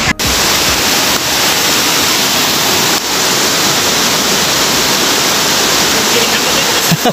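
Rushing water of a rocky river by a waterfall: a loud, steady, even rush.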